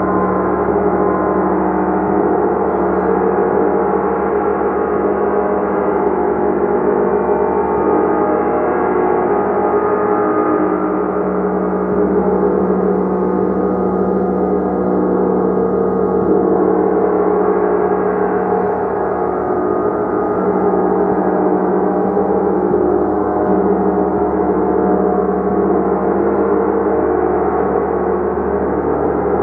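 Gong played continuously: a dense wash of many ringing tones at an even loudness, with no single strike standing out.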